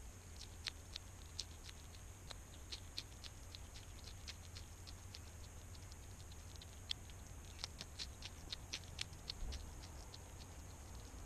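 European hedgehog eating from a dish: a run of sharp, irregular clicks of chewing, a few a second, thickest around eight to nine seconds in.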